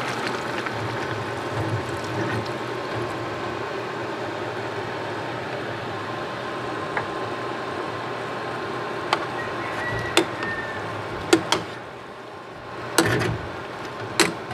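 Coconut milk poured into a stainless-steel pot of simmering squash and string beans, then a steady simmering hiss. From about nine seconds in, a metal ladle knocks sharply against the pot several times as it stirs.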